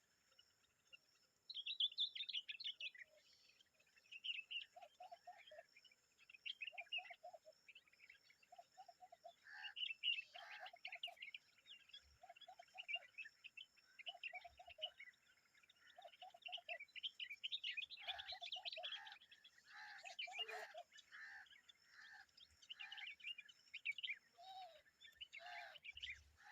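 Common babblers calling: short chattering calls repeated about every second or so, low notes mixed with higher trilling chirps, becoming busier and overlapping in the second half.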